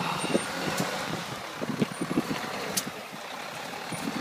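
A car engine running in deep snow, with a few short crunching steps through the snow and wind noise on the microphone.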